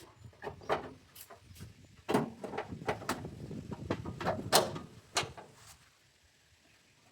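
Irregular clicks, knocks and scraping of parts being handled and moved during work on a front-load washing machine, busiest in the middle and dying away about five seconds in.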